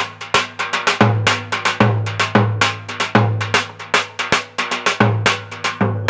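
Turkish davul (large double-headed bass drum) played in a steady dance rhythm: a deep stroke of the heavy beater about once a second, with quick, light, sharp hits of the thin stick in between.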